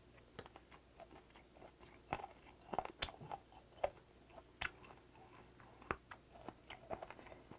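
Close-up chewing of a mouthful of fermented skate, with irregular crunches and wet clicks as the tough cartilage-like bones are bitten through.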